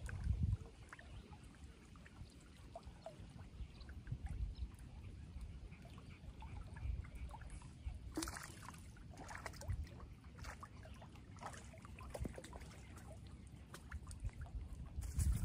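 Small waves lapping against shoreline rocks, with wind rumbling on the microphone in gusts, strongest at the very start and near the end.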